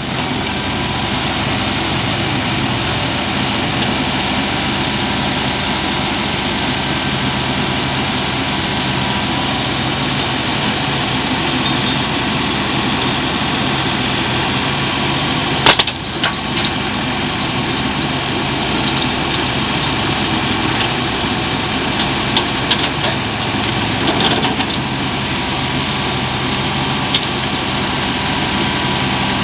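Backhoe diesel engines running steadily while working. A sharp knock sounds about halfway through, with a few lighter knocks later.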